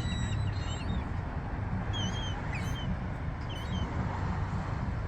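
Seagulls calling: several short, high, squealing calls, one near the start and a few more between about two and four seconds in, over a steady low rumble.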